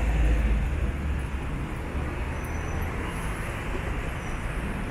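Street traffic: motor vehicle engines running and moving past, with a heavy deep rumble in the first second or so that eases off.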